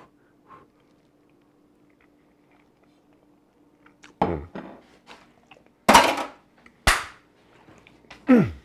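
A man's wordless vocal sounds, each falling in pitch, as he reacts to a very hot mouthful of food, with two sharp knocks about a second apart near the middle, as of a plate or fork hitting the kitchen counter.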